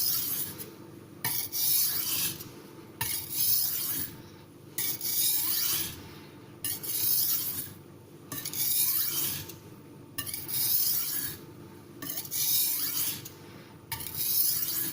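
Spyderco utility knife's MBS-26 steel edge scraped across a dry Missarka 500 sintered aluminium oxide sharpening stone under only the knife's own weight: about nine even strokes, one every second and a half to two seconds. This is the light finishing pass that refines the scratch pattern before polishing.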